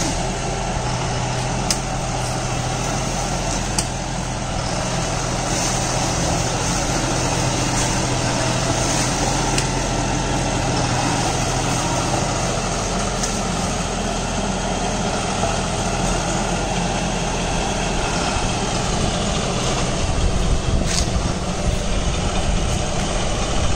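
John Deere 5405 CRDI tractor engine running steadily under load, driving a Shaktiman Tusker rotary tiller that mulches banana stumps, with a few sharp clicks.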